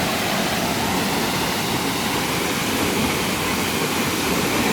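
Takapala waterfall's falling water, a steady, even rush of noise.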